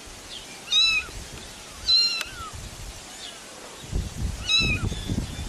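Kitten meowing repeatedly: three loud, high-pitched meows with fainter ones in between. A low rumbling noise comes in near the end.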